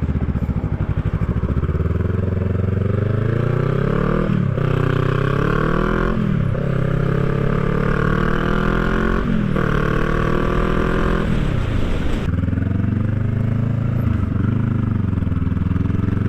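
Honda Rebel 500's parallel-twin engine through a Shorty GP slip-on exhaust, accelerating under way: the engine note climbs and drops back sharply at each upshift, three times, then runs steadier near the end.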